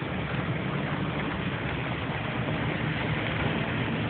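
Steady engine and tyre noise of a moving car, heard from inside the cabin on a rain-wet road.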